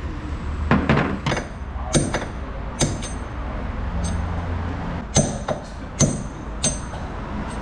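A hammer striking steel: wheel studs being knocked one by one out of a car's wheel hub. There are about seven sharp, ringing metallic blows, irregularly spaced, with a pause of a couple of seconds midway.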